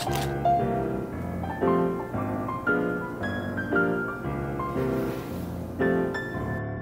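Background piano music, a steady run of notes in an even rhythm.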